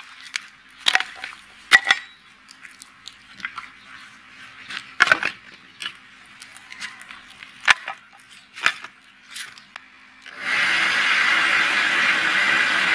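Split-wood fire crackling with scattered sharp pops, then about ten seconds in a steady loud rush of air starts as air is blown through a pipe into the fire to fan it hotter for heating the blade.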